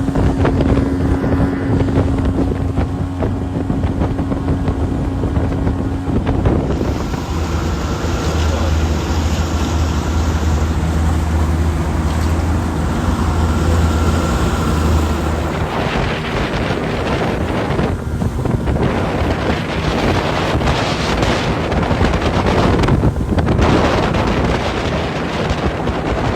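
1985 Yamaha 50 hp two-stroke outboard running at speed on a small aluminium boat, with wind buffeting the microphone. The engine's tone changes about six seconds in, and from about sixteen seconds in wind and water noise cover most of it.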